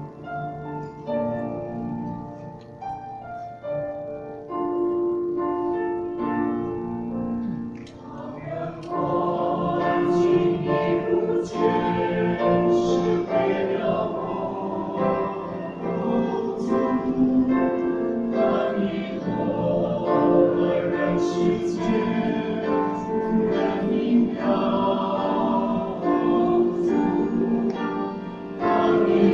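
Mixed church choir singing a Chinese hymn, the sound growing fuller and louder about eight seconds in.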